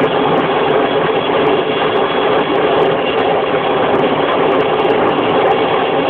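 Helicopter hovering low overhead, its rotor and engine making a steady loud noise.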